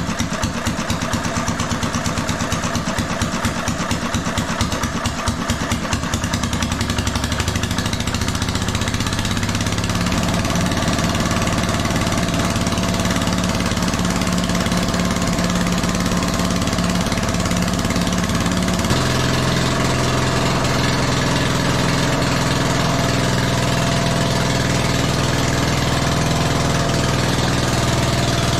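Small military-surplus Farymann diesel engine running, with a fast, even pulsing at first. A few seconds in it settles into a steadier note, and a little past halfway its pitch steps down to a lower steady note. It is running after an ether-assisted start.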